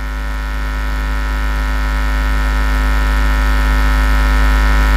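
Loud steady electrical mains hum and buzz, a low drone with many evenly spaced overtones, slowly getting louder.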